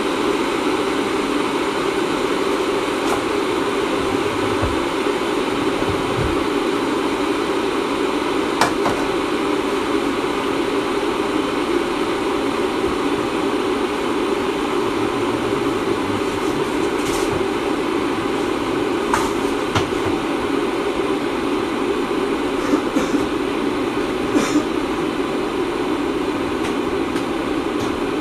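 A steady, loud mechanical drone, like a running fan or motor, with a few faint clicks scattered through it.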